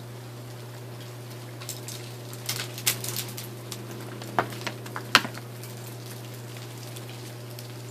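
Melting ice from an ice storm dripping and dropping off glazed branches and icicles: an irregular patter of sharp drips and ticks, thickest in the middle, with the loudest tick about five seconds in.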